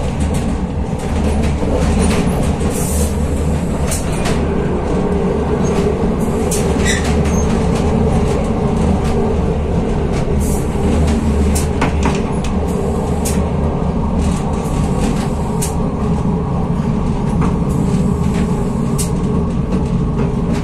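Passenger train running at speed, heard from inside the carriage: a steady low rumble from the running gear, with short sharp clicks and rattles scattered throughout.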